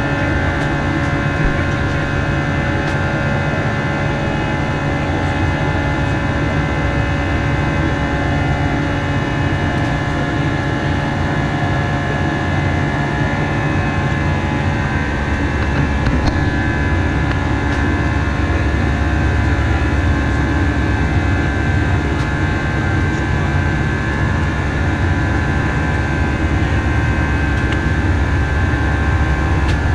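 Steady cabin noise of an Airbus A319 in the climb: the jet engines' hum and rushing airflow, with a few steady whining tones over the noise. The low rumble grows slightly heavier about halfway through.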